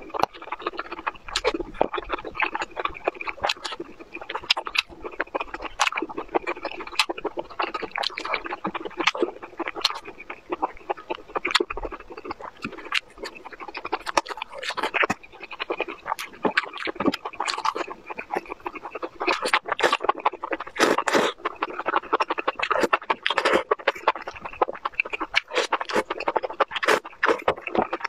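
Close-miked wet chewing, smacking and slurping of enoki mushrooms in spicy sauce, a dense run of sharp mouth clicks and smacks.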